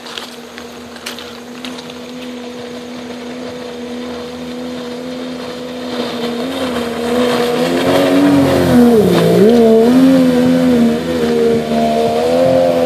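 90 hp Mercury sport jet outboard on an aluminium Bass Tracker boat running across water only about three inches deep, a steady engine note that grows louder as the boat comes closer. Its pitch drops and recovers about two-thirds of the way through and wavers as the throttle changes.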